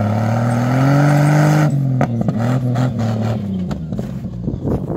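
Off-road SUV's engine revving hard under load as it climbs through snow. The pitch rises for the first second and a half, then drops back as the throttle eases, with a few sharp knocks later on.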